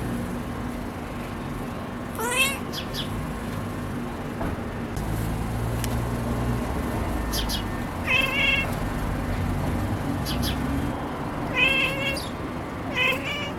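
Siamese cat chirping in short pitched calls: one rising call about two seconds in, then two pairs and a last single call in the second half. Faint high bird chirps sound now and then in the background.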